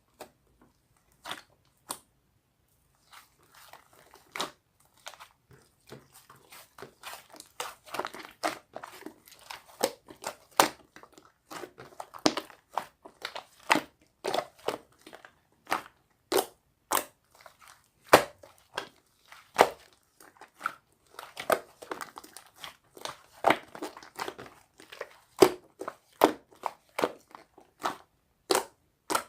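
Blue two-layer slime being squished and poked by hand, giving a run of irregular sharp clicks and pops over a crackling sound. It is sparse at first and becomes dense after about three seconds.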